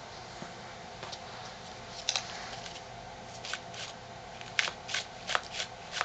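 A paper model rifle being handled: short rustles and light clicks of folded paper, a handful scattered from about two seconds in, over a steady background hiss.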